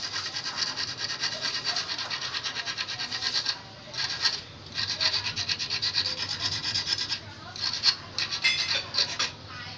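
Small hand file rasping back and forth over the point of a metal fishhook in quick, short strokes, several a second, sharpening the hook's point and barb. The filing stops briefly a few times.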